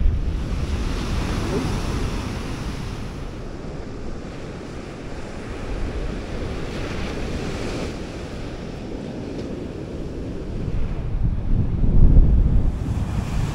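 Heavy, rough surf breaking on the beach and over a rock jetty, with strong wind buffeting the microphone; the wind rumble swells loudest near the end.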